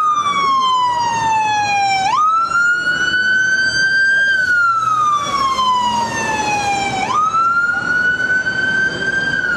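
An emergency vehicle's electronic siren in a loud wail. Each cycle of about five seconds slides slowly down in pitch, snaps back up and climbs again. The vehicle is heading off to an emergency call.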